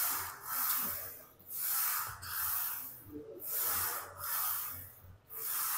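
A man breathing hard and hissing through each rep of a set of bent-over rows on a Smith machine bar: about six sharp breaths, roughly one a second, with no voice in them.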